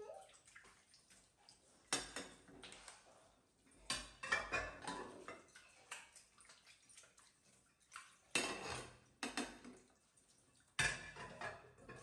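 Ceramic plates and bowls clinking and knocking against each other and a stainless steel sink as dishes are washed by hand. There are several sharp clatters a couple of seconds apart, with quieter water sounds between them.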